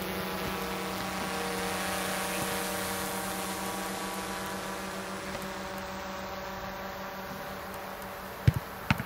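Steady droning hum of a small quadcopter drone's propellers, with a buzzing edge. Near the end, two sharp thumps of a football being struck, close together.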